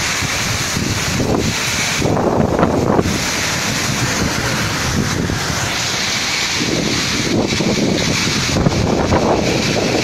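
Summer storm: strong gusting wind buffeting the microphone over the steady rush of a heavy downpour. The gusts swell louder about two seconds in and again near the end.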